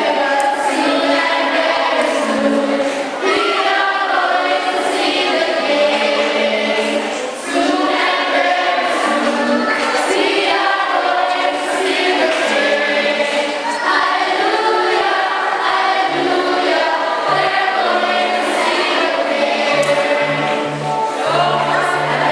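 A group of voices singing a hymn together in church.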